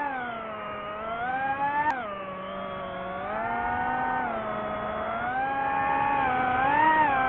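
DJI FPV quadcopter's motors and propellers whining in manual flight, the pitch rising and falling as the throttle is worked. A sharp tick comes about two seconds in, and the pitch drops right after it.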